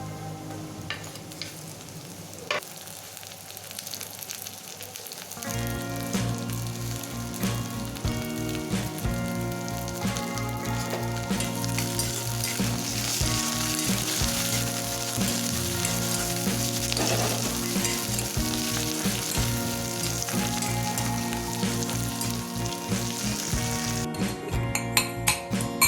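Food frying in hot oil in a pan, with a steady sizzle throughout. Background music with a steady beat comes in about five seconds in.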